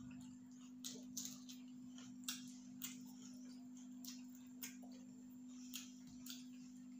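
Faint eating sounds: irregular wet clicks and smacks of chewing, with the squish of rice and chicken curry being mixed by hand on steel plates, about one or two clicks a second, over a steady low hum.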